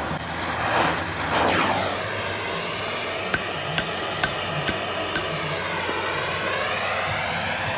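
Gas torch roaring as it heats a bent steel bracket, then five sharp hammer blows about half a second apart, from about three seconds in, beating the hot steel straight.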